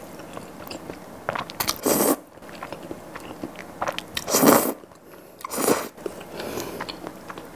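Close-miked slurping of thick mushroom cream pasta noodles: three loud slurps, about two, four and a half and five and a half seconds in, with wet chewing and small mouth clicks between them.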